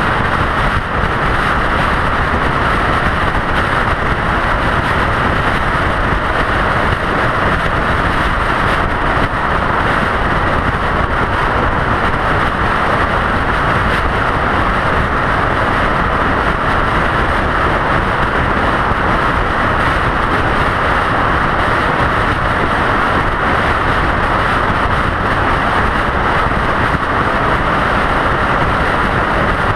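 Steady road and wind noise of a vehicle cruising at highway speed: an even, unbroken rush with a low rumble underneath and no distinct events.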